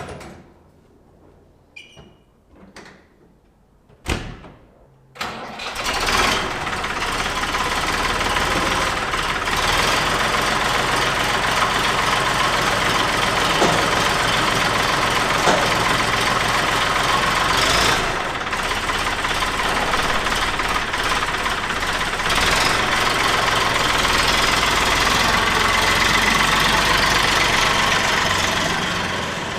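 A few knocks, then the 550 tractor's Indian-built engine starts about five seconds in and runs steadily.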